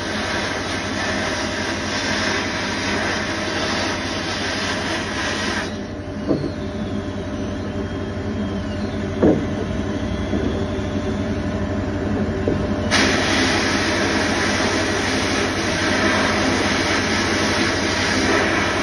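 Sandblast gun in a blast cabinet spraying abrasive with compressed air onto a small metal clamp part: a loud, steady hiss. About six seconds in the blasting stops for roughly seven seconds, leaving a lower steady drone and two short knocks, then the hiss starts again.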